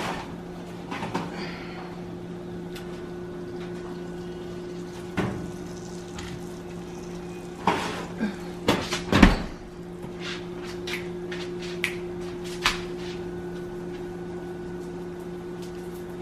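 Kitchen handling sounds: a handful of scattered knocks and clatters, as of cupboards, lids or dishes, bunched most thickly and loudest about eight to nine seconds in. Under them runs a steady low hum.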